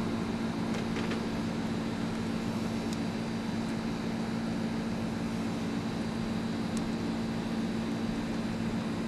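A steady low mechanical hum, like a fan or air-conditioning unit running, with a few faint clicks.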